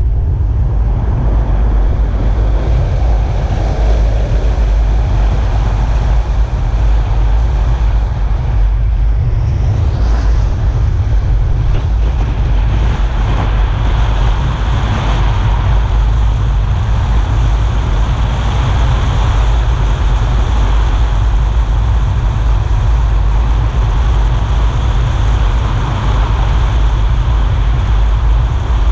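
Car driving on a wet road: a steady, loud, deep wind rumble on the microphone over tyre and road noise.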